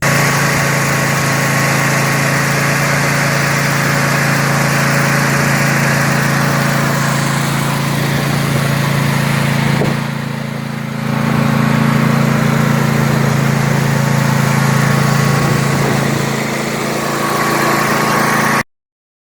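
Zero-turn riding mower's engine running steadily, with a brief drop in level about ten seconds in before it picks back up; it cuts off suddenly near the end.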